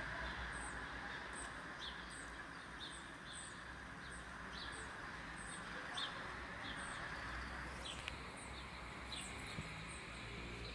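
A bird calling with short, high chirps repeated about twice a second over a steady background hiss.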